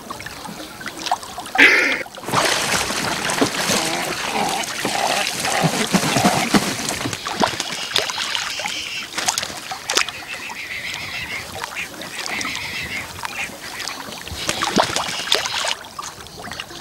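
Waterbirds calling on the lake, a dense run of honking calls that starts about two seconds in and dies away near the end.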